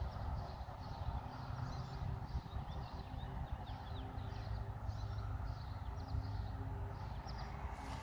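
Small songbirds chirping in many quick, short notes throughout, over a steady low rumble.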